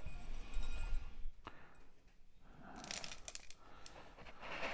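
Loose orchid potting medium rustling and crackling under hands as an orchid is pressed into its pot, with scattered small clicks.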